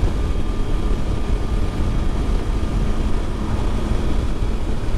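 Triumph Tiger 800 XRx motorcycle cruising at steady road speed: an even low drone of engine and wind noise with no change in pitch.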